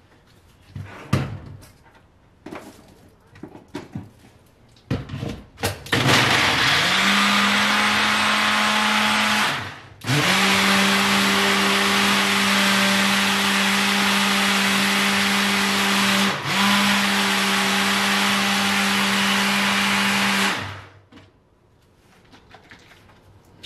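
Personal bullet-style blender blending kale and frozen berries, after a few seconds of clicks and knocks as the cup is handled. The motor runs steadily in two goes: a short run, a brief stop just before ten seconds in, then a long run with one quick dip. It cuts off about three seconds before the end.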